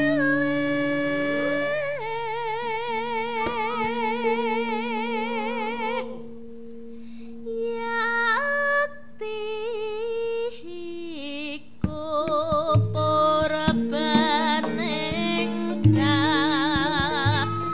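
Javanese gamelan music with a female sindhen singing in a high voice with heavy vibrato over long sustained metallophone tones. The ensemble drops to a softer passage partway through, then low struck notes join as the singing continues.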